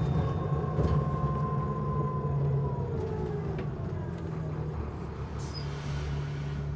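City bus engine running, heard from inside the cabin as a steady low hum, with a whine that falls slowly in pitch over the first three seconds.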